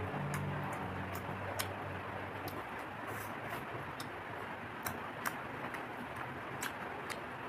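Close-up eating sounds: irregular sharp mouth clicks and smacks from chewing, about one or two a second. A low drone underneath fades out over the first three seconds.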